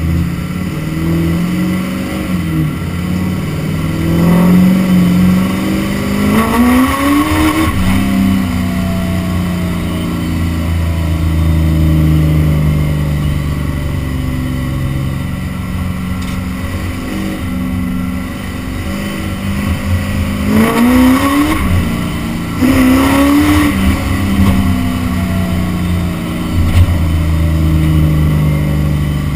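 Duramax LBZ 6.6-litre V8 turbodiesel pickup driving, heard from the truck bed. The engine pitch climbs under acceleration from about four seconds in and drops back at an upshift near eight seconds, then climbs in two more short pulls around twenty and twenty-three seconds, with steady cruising between them.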